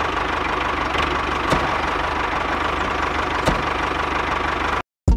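Miniature DIY tractor-and-mill model running with a steady engine-like idle, a fast low chugging under a faint steady hum, and two light clicks. It cuts off abruptly near the end.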